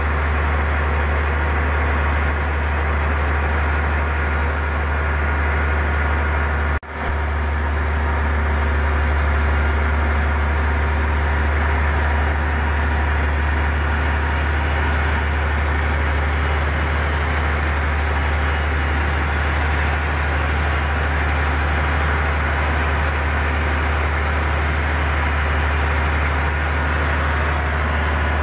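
Heavy diesel engine running steadily with a deep, unbroken drone. There is a brief break in the sound about seven seconds in.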